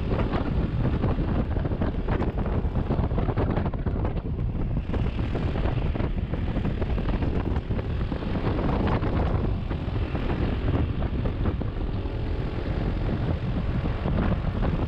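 Wind buffeting the microphone of a camera on a motorcycle riding a rough track, with the vehicle's running noise underneath and many small jolts and rattles.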